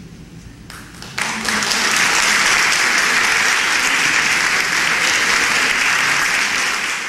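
Audience applause breaking out suddenly about a second in and holding steady and loud, greeting the end of a choral piece as the choir bows.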